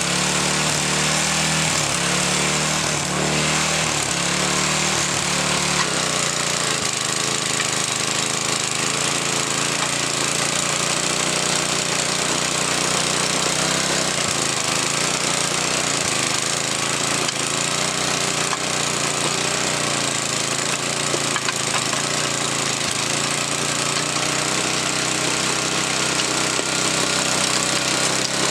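Earthquake garden tiller's small gas engine running steadily under load as it tills soil, with a rough, rattling note that changes about six seconds in.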